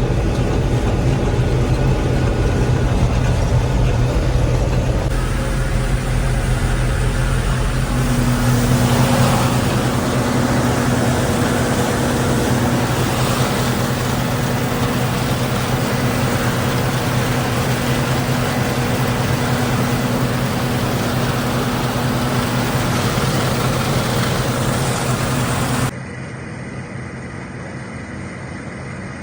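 Gleaner M3 combine running steadily while harvesting wheat: the engine and threshing machinery make a constant, even hum. Near the end the sound abruptly drops and becomes quieter.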